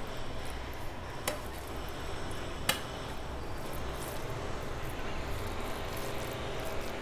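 Fingers mashing and mixing rice with curry on a steel plate, with soft squishing and two sharp clicks against the plate, about a second in and again about a second and a half later. A low steady hum runs underneath.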